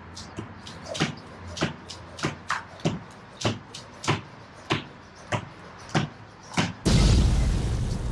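Beaded jump rope clacking against a tiled floor in a steady rhythm, a little under twice a second, during double-under skipping. Near the end the clacks stop and a loud rushing noise takes over for about two seconds.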